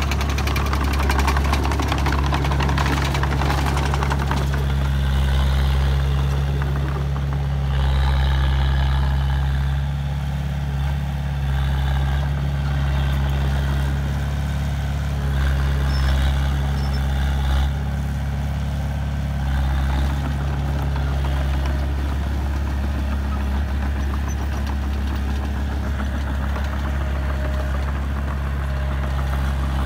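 Diesel engine of a small Komatsu D20A crawler bulldozer running steadily as it pushes and grades dirt, its deep note swelling a little with the load every few seconds.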